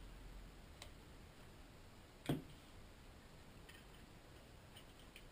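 Quiet bench work while desoldering a small circuit board: a few faint ticks and one sharp tap about two seconds in as the soldering iron, wick and board are handled.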